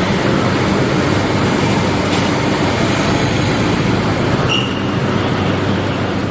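Train running on rails, a steady noisy rumble, with a brief high squeal about four and a half seconds in.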